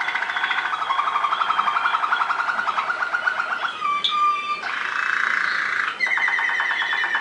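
Waterslager (Malinois) song canary singing without a break: fast rolled trills that change every second or two. A rolling trill rises slightly in pitch, a short clear whistled note comes about four seconds in, then a bubbling passage, and near the end a faster, higher roll.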